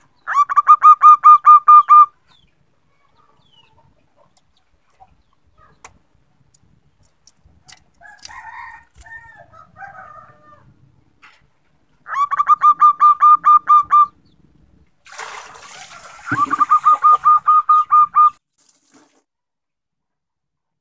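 Zebra dove (perkutut) giving its rapid staccato cooing series three times, each about two seconds of roughly ten quick, clipped notes. The uploader presents it as a female calling to males, used as a lure to make males answer. Fainter, rougher bird calls come in between.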